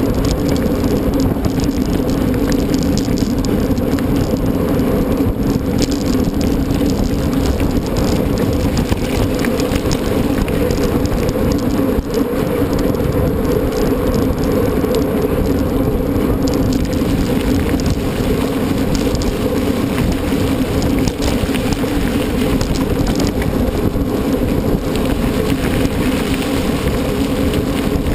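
Mountain bike being ridden over rough ground: a loud, steady rolling noise from the tyres and bike, with some rattle.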